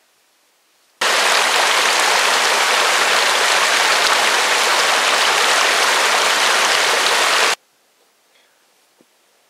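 Small mountain stream rushing over rocks in a steady, loud, even rush. It cuts in suddenly about a second in and cuts off just as suddenly about two seconds before the end.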